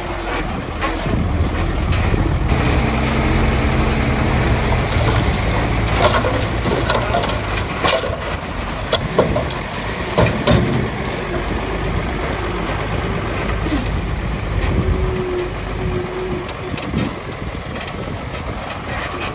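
Heavy diesel earthmoving machinery working: an engine running under load, with sharp metal clanks in the middle and a short air hiss a little past the halfway point.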